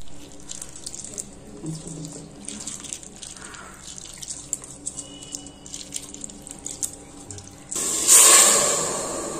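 A hand swishes and rubs toor dal in a steel bowl of water, with soft sloshing and small splashes. Near the end the dal and water are poured into a steel pressure cooker in a loud, rushing splash.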